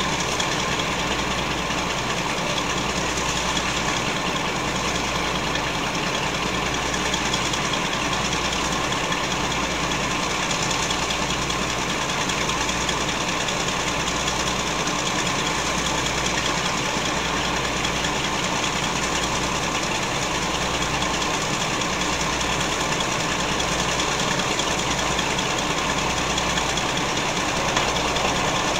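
Diesel locomotive engine idling steadily close by, with a low pulsing throb. A second diesel locomotive approaches on the next line, and the sound grows slightly louder near the end.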